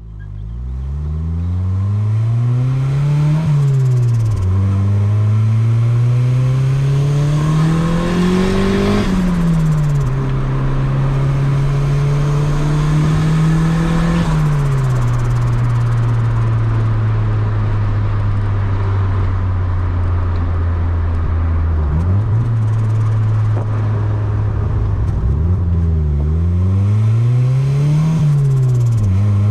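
Turbocharged Honda D16Y8 four-cylinder in a Civic pulling through the gears. Revs climb, drop sharply at each shift, and hold steady while cruising. Turbo flutter (compressor surge) chatters when the throttle is lifted.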